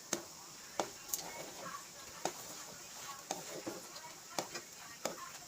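Sharp knocks or clicks, about seven of them at uneven intervals.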